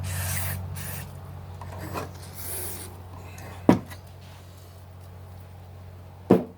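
Short hissing bursts of aerosol electronics contact cleaner sprayed into a power amplifier's input and output jacks. Two sharp knocks, a little past the middle and near the end, are the loudest sounds, over a steady low hum.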